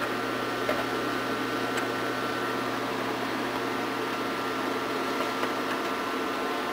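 Sun Ultra 10 workstation's cooling fans running with a steady hum, with a few faint keyboard clicks as 'reset' is typed at the OpenBoot prompt.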